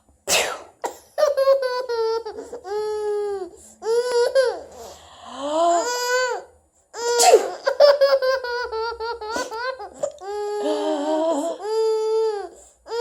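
A baby laughing hard in repeated high-pitched squealing bursts. The bursts come in about four long fits, with short breaks for breath between them.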